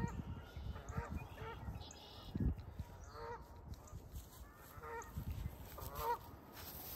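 Geese honking, about half a dozen short, scattered calls, faint, with the low thumps of footsteps on grass underneath.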